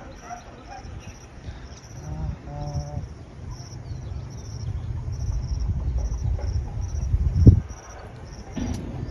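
An insect chirping steadily, about two high chirps a second, over a low rumble, with a single loud thump about seven and a half seconds in.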